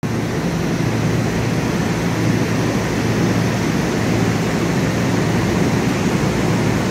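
Steady hum and rush of a Long Island Rail Road Kawasaki M9 electric train standing at an underground platform, its on-board ventilation and electrical equipment running.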